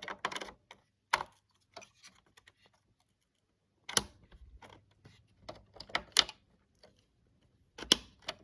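Plastic and metal clicks and knocks of a RAM memory module being handled and pressed into a desktop computer's memory slot, with the slot's latches snapping. Four sharper clicks stand out, a second or two apart.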